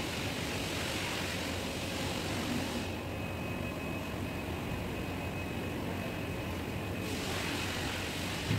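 Two-post hydraulic car lift's electric pump motor running steadily as it raises a car, a constant mechanical hum.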